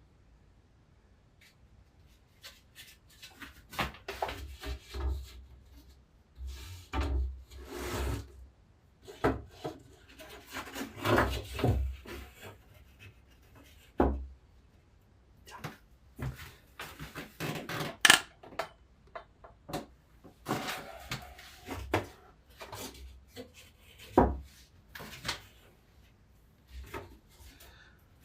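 Wooden pieces being handled: irregular knocks, clacks and scraping rubs of wood on wood, with a sharp knock about eighteen seconds in.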